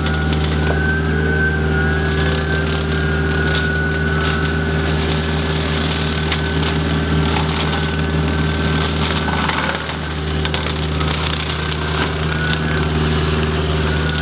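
Kubota KX121 mini excavator's diesel engine running steadily under load while driving a hydraulic rotary brush mower, with a thin high whine that drifts slightly in pitch and scattered ticks. The level dips briefly about ten seconds in.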